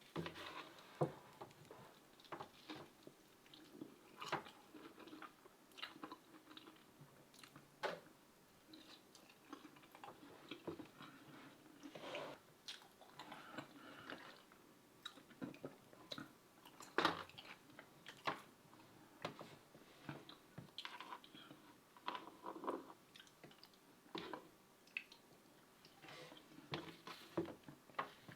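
Close-up eating sounds: chewing and biting with irregular mouth clicks, smacks and occasional crunches, the loudest about halfway through.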